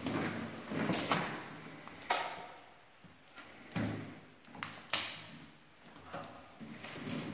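Plastic knocks and clicks from a Bosch GAS 15 vacuum hose and its adapter being handled and pushed onto a mitre saw's dust port: a handful of sharp, irregularly spaced knocks with rustling handling between.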